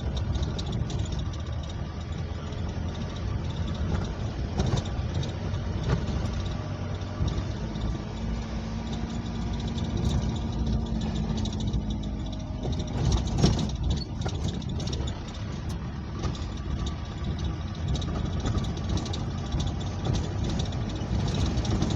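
A vehicle engine running steadily while the vehicle is driven, with rattles and knocks from the body over an uneven track.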